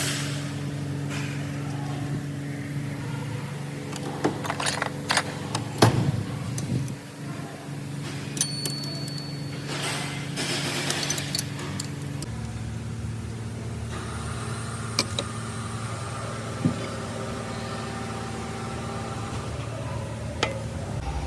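Car engine running steadily. A few sharp clicks and knocks sound over it about four to six seconds in, and its hum shifts slightly in pitch about twelve seconds in.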